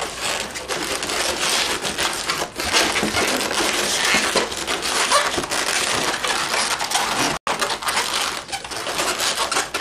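Inflated latex twisting balloons squeaking and creaking as they rub against each other while being handled and twisted, an irregular run of rubbery squeaks with a split-second gap about three quarters of the way through.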